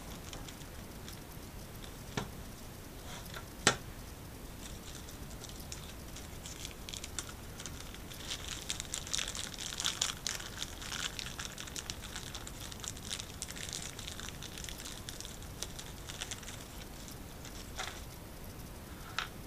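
Small clear plastic zip bag crinkling as it is handled, loudest in the middle, with two sharp knocks near the start and a couple of lighter clicks near the end.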